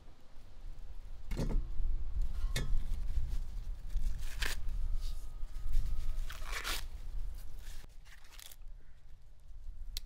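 Dry corn husks and leaves tearing and crackling in several short bursts, as ears of corn are picked or husked by hand.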